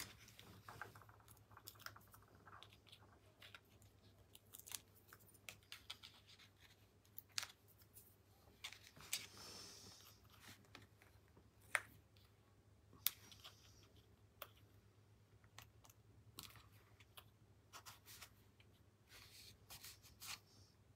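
Faint rustling of card and paper being handled and pressed together by hand, with scattered small clicks and taps; the sharpest ticks come about two-thirds of the way through.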